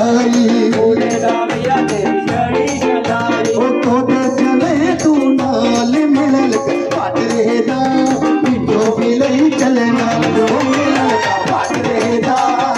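Loud Dogri/Pahari folk music: a wandering melody line over fast, steady percussion.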